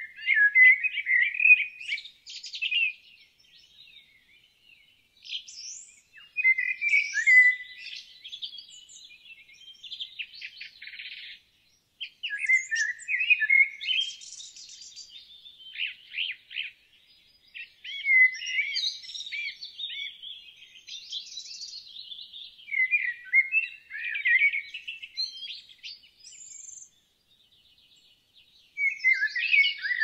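A songbird singing, phrase after phrase of high warbles and rapid trills lasting a few seconds each, with short pauses between them and a longer pause near the end.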